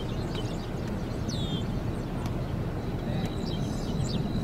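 Open-air ambience: a low steady rumble of wind on the microphone, with a bird's short falling chirp about a second in and a thin steady high whistle near the end.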